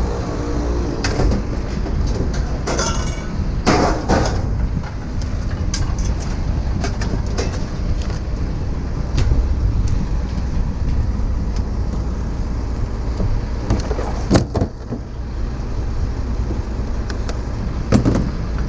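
A vehicle running with a steady low rumble, and scattered knocks and clanks over it.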